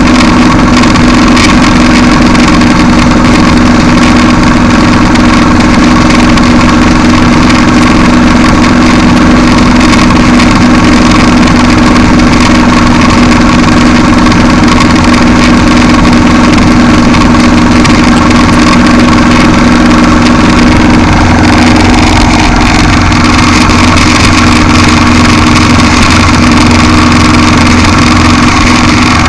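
Motorcycle engine running steadily at highway cruising speed, loud and unchanging, under a heavy haze of wind and road noise.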